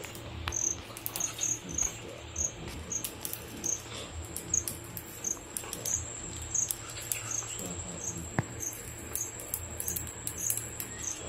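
Insect chirping: a high, steady trill with short chirps repeating about once a second, over scattered faint clicks and a low hum.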